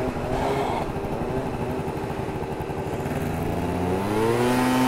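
Two-stroke Yamaha Booster scooter engine heard from on board, running along over wind and road noise; near the end its revs climb for about a second and then hold steady.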